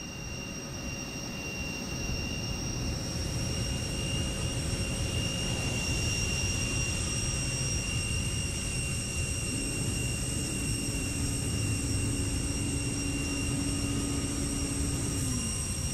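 Steady jet turbine whine over a low rumble, rising in level over the first few seconds. A lower hum joins about nine seconds in and slides down in pitch near the end.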